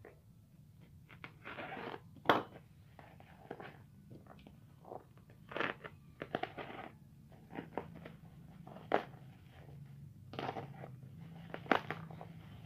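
A small knife slitting the packing tape and plastic wrap of a parcel: irregular crinkling, scraping and tearing, with a few sharp clicks, the loudest about two seconds in.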